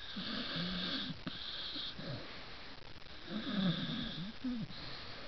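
Jack Russell–Corgi cross dog snoring gently in its sleep: two drawn-out snoring breaths, the second one louder.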